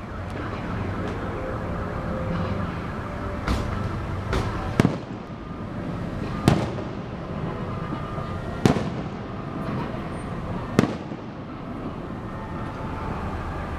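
Aerial fireworks shells bursting in a series of sharp bangs over a steady background noise. The loudest bangs come about every two seconds from about five seconds in.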